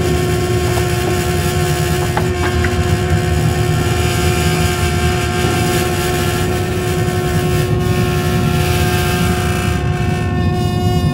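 Dense experimental electroacoustic music: a steady low rumble and hiss with two held tones, one low and one higher, and no beat. Near the end the upper hiss thins out and wavers.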